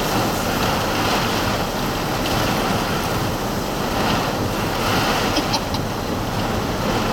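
Strong thunderstorm wind rushing steadily past a parked vehicle, heard through its open back window.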